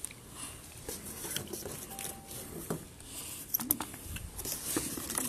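Light clatter of a shared meal on a floor mat: scattered small clicks, taps and scrapes with a little rustling, none of them loud.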